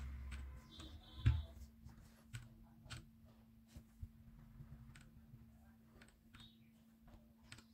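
Scattered single key presses on a Royal Kludge RK84 V2 mechanical keyboard with Gateron switches, cycling its RGB lighting modes: faint irregular clicks, the loudest a knock about a second in.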